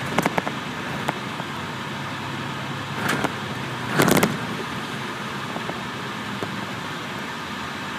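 Cabin noise inside a 2005 MCI D4500CL diesel coach under way: a steady hum of engine and road. A few light clicks and two brief rattles come about three and four seconds in.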